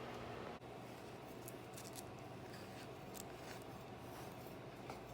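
Quiet room tone with a few faint, light clicks and rustles scattered through it.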